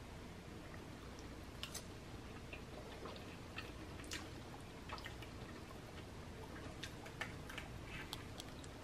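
Faint, irregular light clicks and taps of a plastic fork picking at food in an aluminium foil takeout tray.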